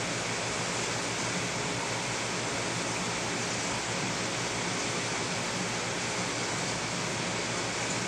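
Steady, even rushing hiss of aquarium water circulation.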